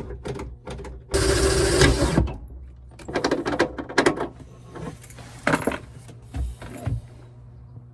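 Metal hardware being worked by hand, clicking and rattling. About a second in comes a loud, rapid mechanical burst lasting about a second, and near the end two low thumps.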